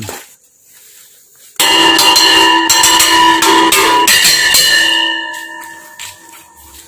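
A loud bell-like ringing chord of several pitches, starting suddenly about a second and a half in, held for a couple of seconds and then fading away.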